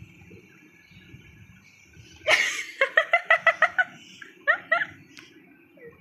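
Quiet room tone, then about two seconds in a sudden loud burst of laughter: a quick run of high 'ha-ha' pulses, about eight in a second, followed by a shorter laugh.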